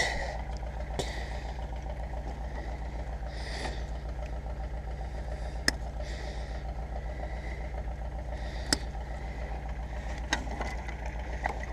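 An engine idling steadily with a low hum, while a few sharp clicks and brief rustles come from wires being cut.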